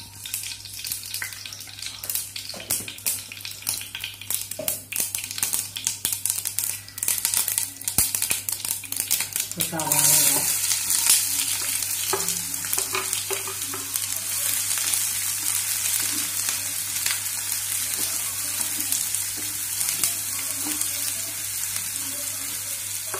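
Mustard seeds crackling and popping in hot oil in a non-stick pan, the first step of tempering. About ten seconds in, chopped onions go into the oil and set off a louder steady sizzle, stirred with a wooden spatula.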